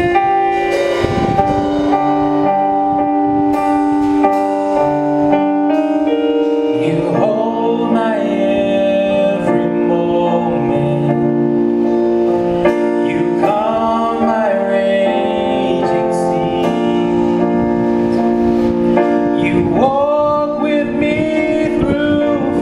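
Gospel worship song with a band: sustained keyboard chords open it, and a male vocal group comes in singing about seven seconds in.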